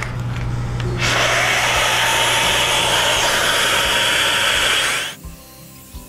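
Dust extractor hooked to a track saw, running with a loud, even rushing hiss that switches on suddenly about a second in and stops abruptly about five seconds in. Quiet background music follows.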